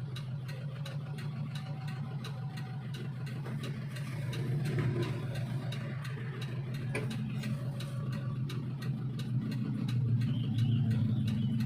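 Suzuki Espass van engine idling steadily, with a light regular ticking at about four ticks a second.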